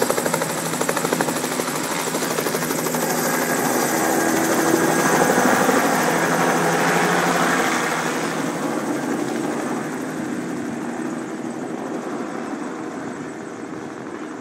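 Small two-bladed helicopter lifting off and flying away, its rotor chop and engine loudest about five seconds in, then fading steadily as it climbs off into the distance.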